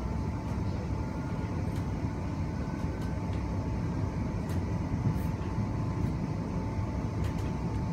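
Interior of an electric train running steadily: a continuous low rumble from the wheels and running gear, with a steady high hum held throughout and a few faint clicks.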